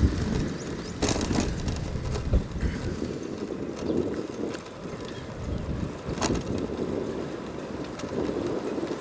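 Wind buffeting the camera microphone and road rumble while riding a bicycle, with a few sharp knocks about a second in and again past six seconds.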